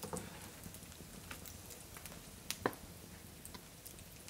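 Scattered crackles and small pops from hot fat in the pan and the wood fire beneath it. Metal tongs scrape against the confit chicken legs at the start, and two sharp clicks come about two and a half seconds in.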